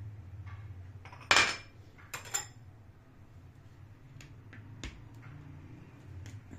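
Glass bowls and a metal spoon clinking and being set down on a stone countertop: one sharp knock about a second and a half in, a double clink just after two seconds, then a few lighter ticks. A low steady hum runs underneath.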